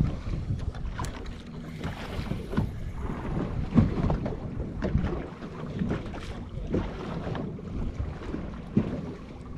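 Wind buffeting the microphone on a small boat on choppy water, with irregular slaps and knocks of waves against the hull.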